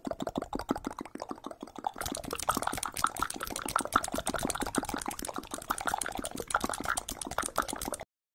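Rapid wet mouth clicks and smacks, ASMR mouth sounds, getting louder and crisper about two seconds in and cutting off suddenly near the end.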